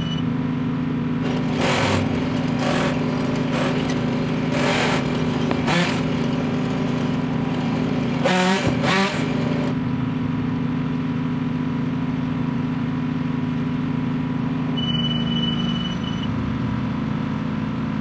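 An engine running steadily, with several short louder bursts over the first half, the last of them wavering up and down in pitch.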